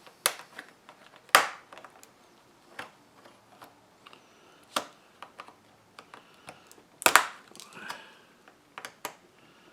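A handful of sharp plastic clicks and taps, spread irregularly, as laptop parts are handled and pried apart during disassembly.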